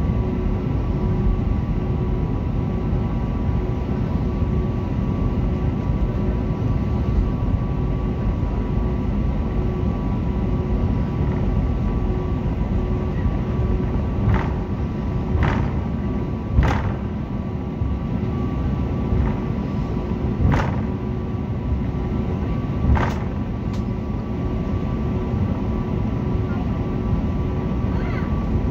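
Jet airliner cabin while taxiing: a steady low rumble of the engines and rolling wheels with a faint steady hum. About six short sharp knocks come in the middle, a second or more apart.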